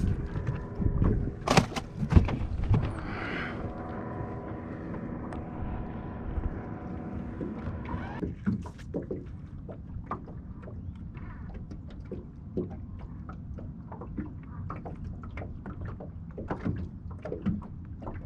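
Boat's electric trolling motor humming steadily, cutting out about 8 seconds in. Sharp knocks near the start and scattered small clicks and knocks on the boat throughout.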